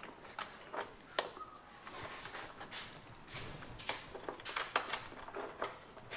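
Scattered light clicks and knocks of objects being handled, a dozen or so irregular short taps spread over several seconds.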